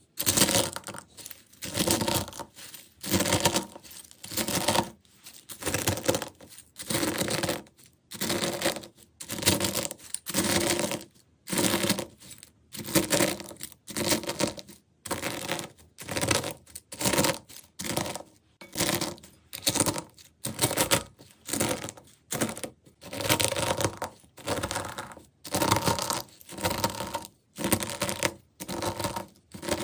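Brittle coloured flakes crunching and crackling as a steel pestle presses down into them in a glass bowl, with about one crushing press a second.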